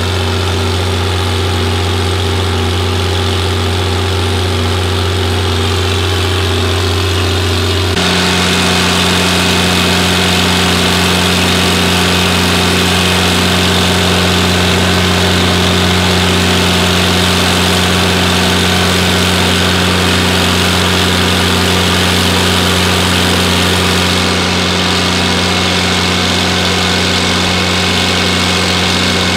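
Six-cylinder stationary diesel irrigation engine running steadily under load, driving a 3300 gpm irrigation pump through a driveshaft. A constant even drone; about eight seconds in it suddenly turns brighter and a little louder.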